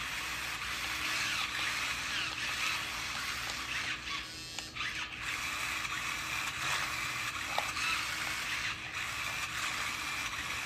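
Small electric drive motors and plastic gearboxes of a Sharper Image Spin Drifter 360 toy RC car whining steadily, the pitch rising and falling with the throttle, as its wheels spin with the car stuck upside down.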